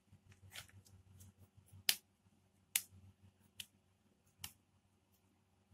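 Hands pressing, slapping and shaping a lump of soft maida dough in a plastic bowl: scattered short, sharp taps and slaps, the loudest about two seconds in, over a faint low hum.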